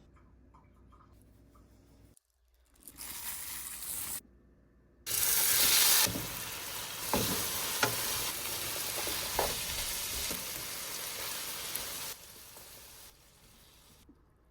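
Beef for Vietnamese shaking beef sizzling in a hot pan. A short stretch of frying cuts off abruptly, then a louder, longer one follows, with a few sharp clicks of a utensil against the pan before it fades away.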